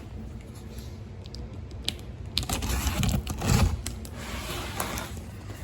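Packaging being handled and pulled open: scattered crisp clicks and crinkles, then a stretch of rustling from about halfway through, with a few dull thumps.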